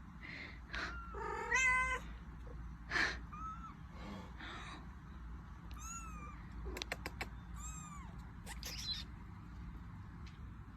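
A mother cat meowing a few times, then a kitten's short, very high, thin mews repeating through the second half.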